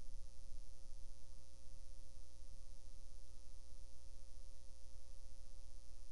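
Steady low electrical hum with a faint hiss and a few faint steady tones: room tone with nothing else happening.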